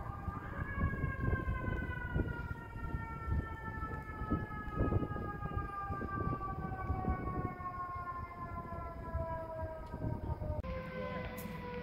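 A fire truck's mechanical siren winds up briefly, then coasts down in one long, slowly falling wail, over a low rumble of vehicle engines.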